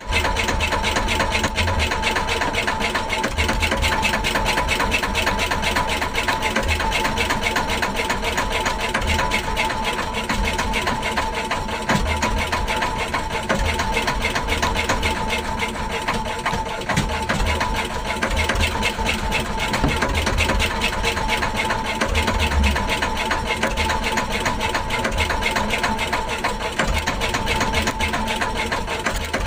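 Fishing boat's engine running steadily, with a fast, even beat and a steady hum over it.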